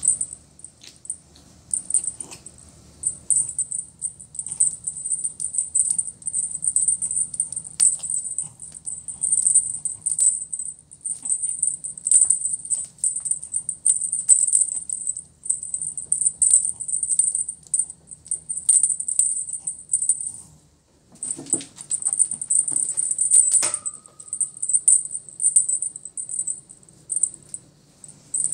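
Feather wand cat toy being shaken, a high thin jingle in quick irregular bursts, with a few light knocks.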